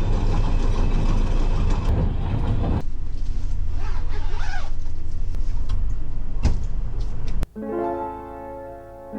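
Steady low rumble of a moving vehicle heard from inside. About seven and a half seconds in it cuts off abruptly and gentle piano music begins.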